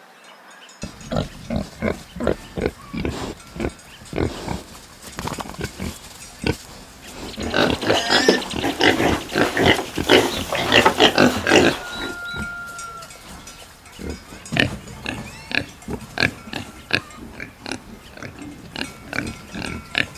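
Domestic pigs grunting in many short, repeated calls, growing louder and busier for a few seconds in the middle.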